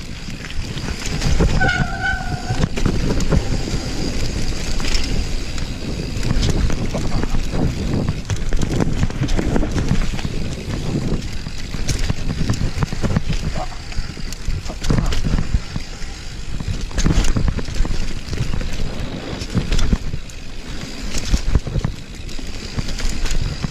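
Downhill mountain bike descending a rough trail: wind buffeting the helmet camera's microphone over the rumble of tyres on dirt and the rattle of the bike's frame and chain, with a brief squeal about two seconds in.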